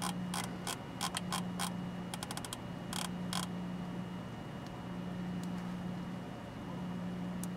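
A series of small, sharp clicks, with a quick rattling run of them about two seconds in, dying away to a couple of faint ticks after about three and a half seconds, over a steady low hum.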